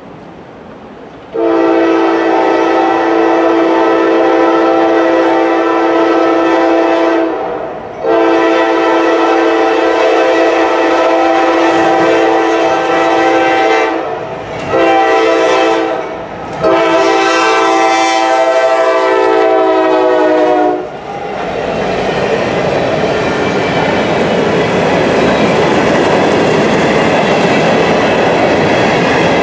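Norfolk Southern GE AC44C6M locomotive's air horn sounding the grade-crossing signal: two long blasts, a short one, then a long one whose pitch drops slightly as the locomotive passes. After that comes the steady rumble and clickety-clack of covered hopper cars rolling by.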